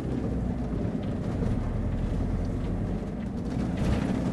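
Steady low engine and road rumble heard from inside the cab of a camper van driving at low speed, its 110 hp HDi diesel running evenly.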